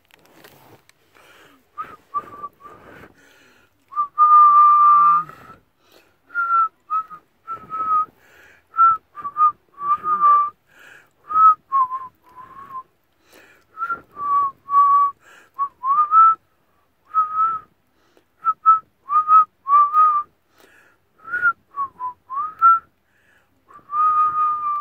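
A woman whistling a tune through pursed lips: a run of short notes that step up and down, with one longer held note about four seconds in and another near the end.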